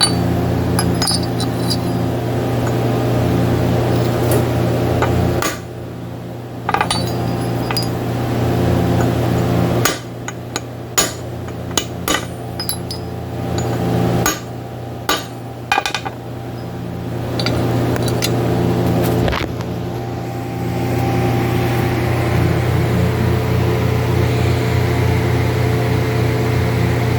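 Homemade center punches, made from welded old steel files, being struck with a hammer to punch marks into steel. The sharp metallic taps come irregularly, several in quick runs through the middle. A steady electrical hum runs underneath.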